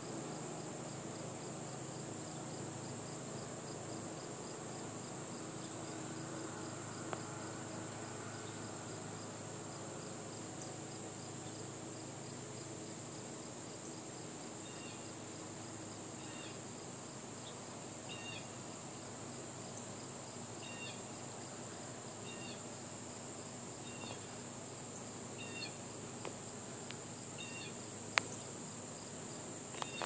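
Steady high-pitched insect chorus in summer woodland, with short high two-note chirps repeating every second or two through the second half and a single sharp click near the end.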